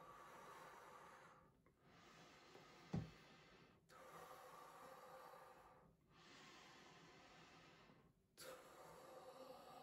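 Slow breathing through the nose while a large bubblegum bubble is held at the lips: breaths alternate in and out about every two seconds. A single soft low thump comes about three seconds in.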